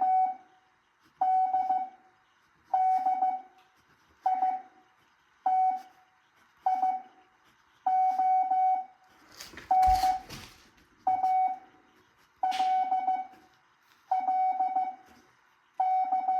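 Morse code (CW) practice tone sent at 7.5 words a minute: a single steady beep keyed into about a dozen characters, each a short cluster of dots and dashes with a pause of roughly a second between characters. A brief rustling noise about ten seconds in.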